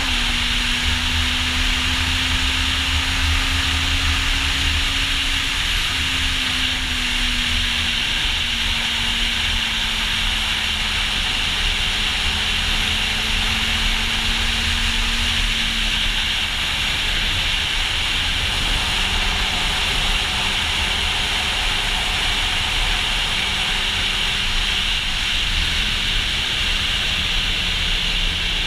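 Kawasaki Z800e motorcycle's inline-four engine with Akrapovic exhaust running on the road, its note drifting slowly lower with a few small steps, under heavy wind noise rushing over the camera microphone.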